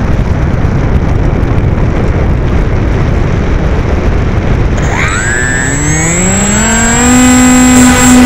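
Air rushing over the onboard camera's microphone as the AXN Floater-Jet RC plane flies low, then about five seconds in its electric motor and propeller spool up with a rising whine that levels off into a loud steady tone: the throttle opened for a climb.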